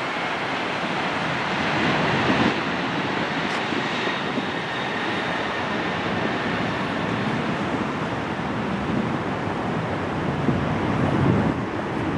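Boeing 737-800's CFM56-7B jet engines at takeoff thrust: a steady, loud roar with a faint high whine that slowly drops in pitch during the first few seconds.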